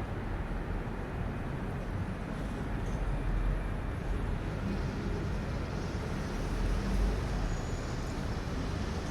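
Heavy machinery running steadily with a low rumble.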